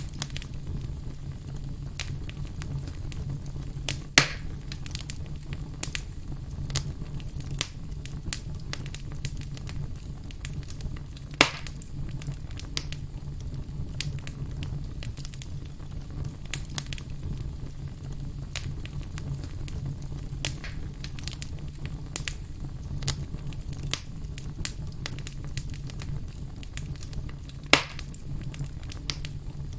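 Firewood burning, crackling with many small clicks and three louder pops, over a steady low rumble.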